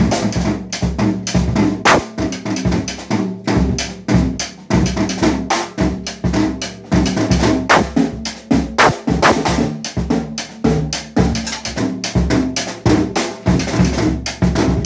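Acoustic drum kit played loosely and wildly: a continuous stream of snare, bass drum and cymbal hits, coming several times a second in an uneven rhythm.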